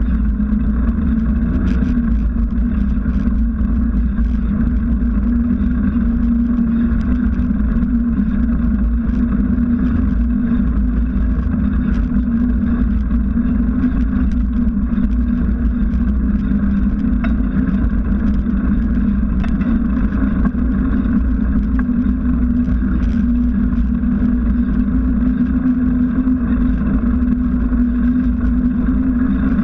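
Bicycle riding along an asphalt street, heard through a handlebar-mounted camera: a steady low rumble with a constant hum from the knobby front tyre rolling, plus faint scattered ticks.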